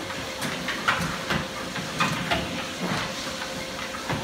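Two treadmills running, with a steady hiss and a faint steady whine from the belts and motors. Over it come irregular soft thuds from German Shepherds' paws stepping on the moving belts.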